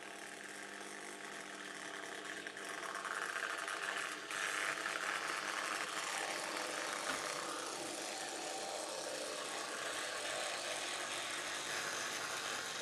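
Small electric motor of a motorised OO-scale model tram (Corgi Blackpool tram fitted with a Bec-Kits drive) running, with its wheels rolling on the rails as a steady whirr. The whirr grows louder about three and four seconds in as the tram comes closer.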